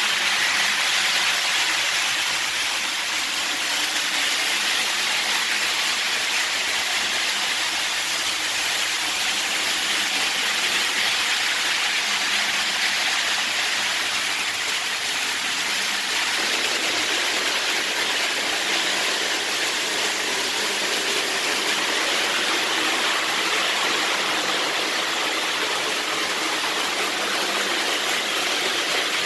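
Model trains running on the layout: a steady whirring rush of wheels on track and motors.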